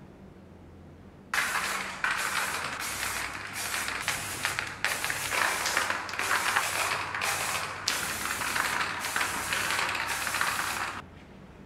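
Aerosol spray paint can hissing in a run of short sprays with brief breaks between them, starting about a second in and stopping near the end.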